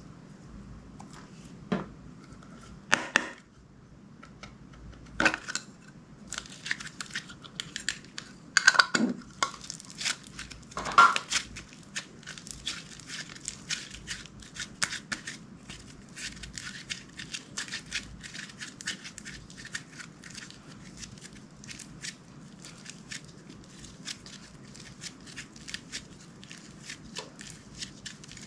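Hands squishing and stretching clear slime, making sticky clicks and pops: a few louder pops in the first twelve seconds, then a steady run of small clicks.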